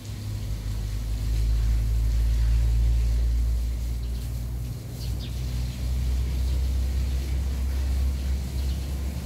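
A low, steady engine rumble from an unseen motor. It swells about a second in and dips briefly around the middle.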